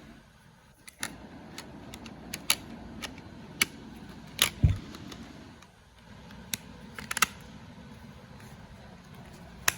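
Hard-disk enclosure cover being fitted over the drive: scattered sharp clicks and taps, with a heavier knock about halfway through.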